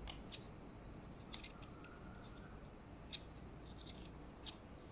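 Small sewing scissors snipping cloth: several quick, faint snips at irregular intervals, clipping into the seam allowance around a stitched neckline so the neck turns out neatly.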